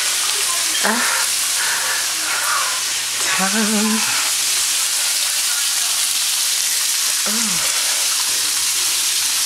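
Onions, pineapple and water chestnuts frying in olive oil in a saucepan: a steady sizzle.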